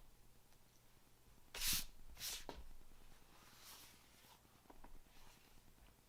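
Handling noise: short rubbing, scraping rustles, the loudest about a second and a half in and another just after two seconds, then softer rubs and a couple of light clicks.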